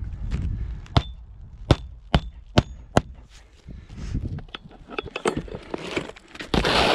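Magnetic roofing hatchet driving roofing nails through asphalt shingles: five sharp, ringing strikes in about two seconds, then lighter taps and a brief rustle of shingle near the end.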